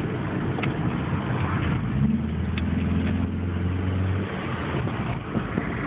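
Car engine breathing through a custom cold air intake as the car drives along, heard from inside the cabin with the windows down, over road and wind noise. About two seconds in, a steady engine note comes up and holds for a couple of seconds before fading back into the rumble.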